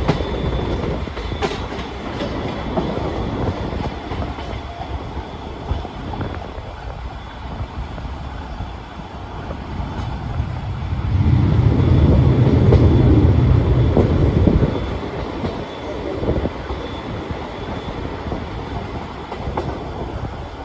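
Old-style passenger coach running on the rails, heard from inside: a steady rumble of wheels on track with the clickety-clack of rail joints. Midway a louder, deeper rumble swells for about four seconds, then falls back.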